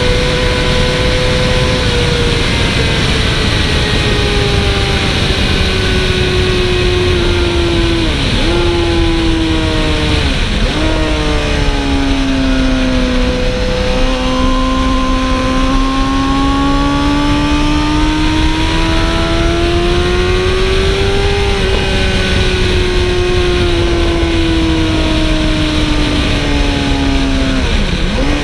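Sport motorcycle engine running hard on a racetrack, heard from an onboard camera with heavy wind rush. The engine pitch sinks over the first dozen seconds with three brief sharp dips, climbs slowly for several seconds, then eases off again with one more dip near the end.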